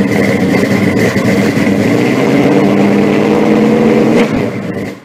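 A loud engine running, with a steady high tone above it and a slight rise in pitch partway through, fading out about four seconds in.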